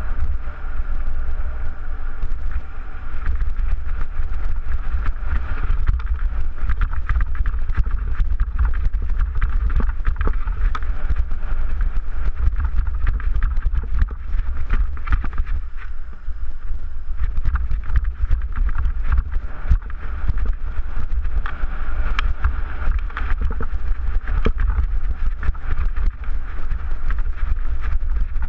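Mountain bike rattling and clattering over rocky trail at speed, with many short knocks from the bike and wind buffeting the camera microphone in a steady low rumble.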